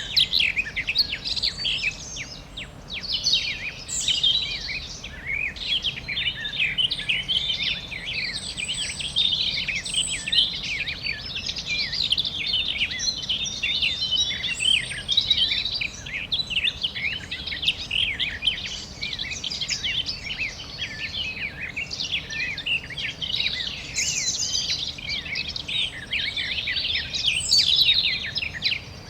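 Many small birds chirping and trilling at once, a dense overlapping chorus of short high calls over a faint steady background hiss.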